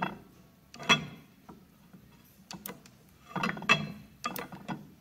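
Steel lead screw being worked by hand in the half nuts of a Monarch 10EE lathe apron, giving metallic clinks: one sharp clink about a second in, then a quick run of clicks and knocks about three and a half to four and a half seconds in.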